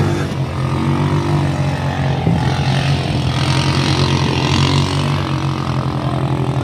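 A vehicle engine running steadily, with an even low hum and no change in pitch.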